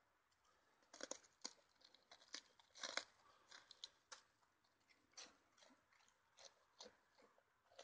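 Sheep eating: faint, irregular crunches of biting and chewing, about two a second.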